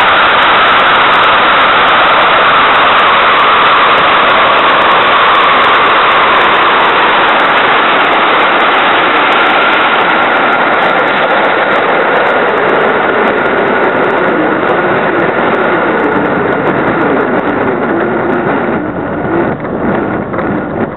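Airflow rushing over a mini camera mounted on an SZD-50 Puchacz glider, a loud steady rush with a faint thin whistle. It slowly eases as the glider slows for landing and turns uneven and bumpy in the last couple of seconds, close to the grass.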